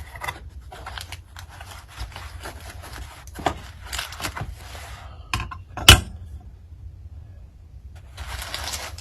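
Small metal guitar hardware and its packaging being handled: rustling with scattered light clicks and scrapes, and one sharp click about six seconds in.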